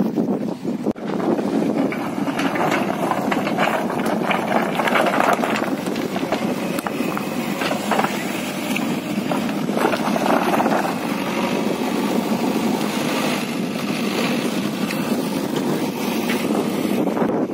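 Diesel engine of a JCB backhoe loader running steadily, with scattered short knocks.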